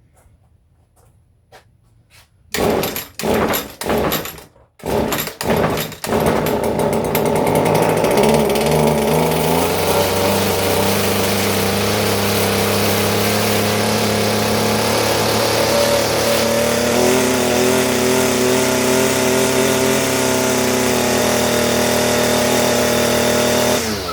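Echo SRM-230 string trimmer's small two-stroke engine being pull-started on choke with a freshly fitted carburetor. It fires in a few short sputters, catches about six seconds in and then runs steadily until it stops near the end.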